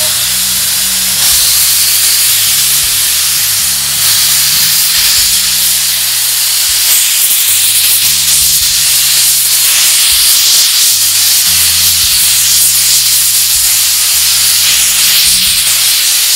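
Loud, steady hiss of steam escaping from the C62 steam locomotive as it moves off, with steam venting low at the front by the cylinders.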